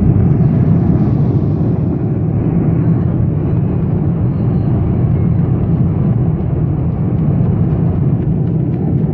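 Airliner cabin noise in flight aboard an Airbus A350-900: a steady low rumble of engines and airflow.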